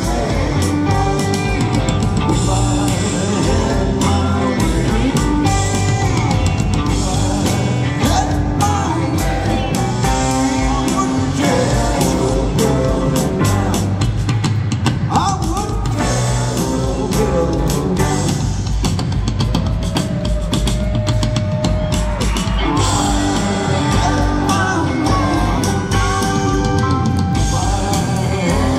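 A live rock band playing loudly on stage, with electric guitar, drum kit and pedal steel guitar carrying a steady full-band groove. About halfway through, one note slides in pitch.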